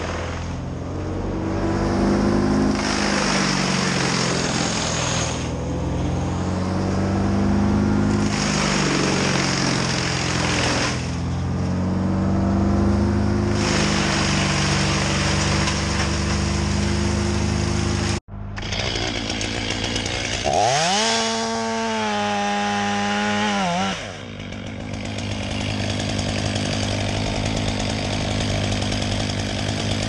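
Chainsaw cutting in several long stretches over a steady engine drone. The sound breaks off abruptly about eighteen seconds in, then an engine revs up, holds for a few seconds and drops back before the saw noise carries on.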